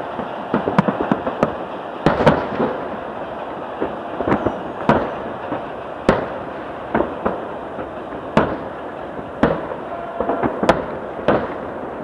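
Aerial firework shells bursting: sharp bangs at irregular intervals, a few much louder than the rest, over a steady background of crackle and rumble.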